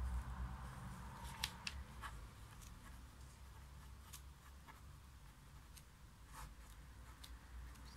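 Pen writing on squared paper: faint scratches and light ticks of the tip on the sheet, scattered through, over a low steady hum.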